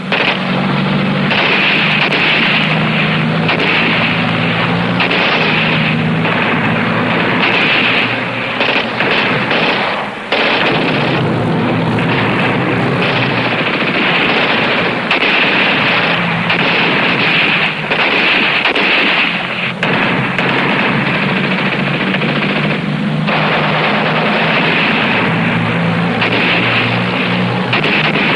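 Sustained, near-continuous machine-gun fire from jeep-mounted machine guns, breaking off briefly about ten seconds in and again around twenty-three seconds in, over the running engines of the jeeps.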